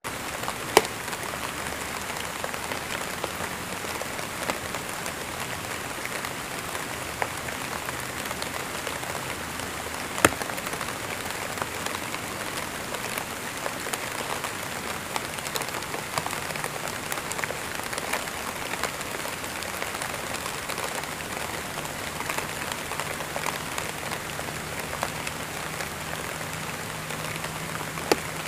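Steady rain falling, a dense even hiss of drops with scattered sharper drip hits, the loudest about a second in and about ten seconds in.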